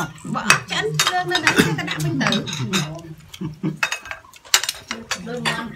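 Metal tongs and utensils clinking and knocking against a plate as food is served, in a series of sharp clicks. A man's voice is heard through about the first three seconds.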